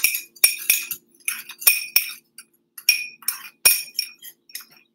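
Metal spoon stirring a dry spice mix in a small ceramic ramekin, clinking against the bowl in a string of irregular light clinks. A faint steady hum runs underneath.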